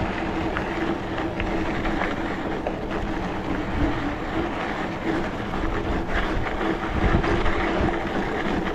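Riding noise from an SE OM Duro bike on 27.5 x 3 fat tyres: a steady rush of wind on the microphone with tyre rumble and a faint steady hum.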